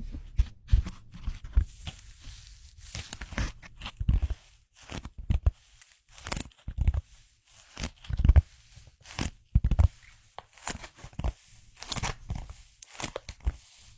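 Close-miked crinkling and tearing sounds from an object handled right at the microphone: irregular sharp crackles mixed with soft low thuds, in uneven clusters.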